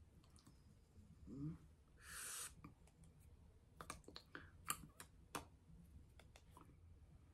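Near silence with faint scattered clicks, a brief low vocal sound about a second in and a short breathy hiss about two seconds in: mouth, breath and hand noises of a person signing.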